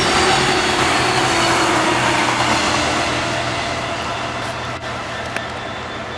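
Diesel multiple unit passing close and pulling away: wheel-on-rail noise over the drone of its diesel engine. It is loudest at the start and fades as the train recedes, the engine note sliding slightly lower.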